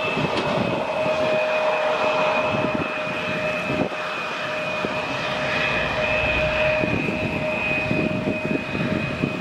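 Embraer E-Jet regional jet's twin turbofan engines running, a steady two-tone whine over a rushing rumble, the pitch dipping slightly at the start.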